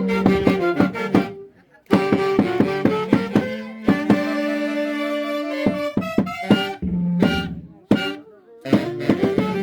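Instrumental Santiago dance music from the Mantaro Valley, a lively melody over a steady beat that stops briefly twice, about a second and a half in and again near the end.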